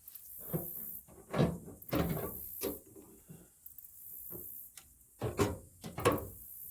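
Irregular clunks and knocks of hard objects being handled: about eight bumps, the loudest ones about a second and a half in and again near the end.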